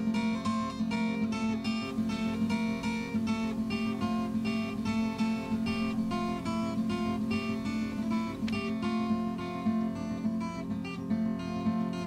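Background music: acoustic guitar playing a steady stream of plucked and strummed notes.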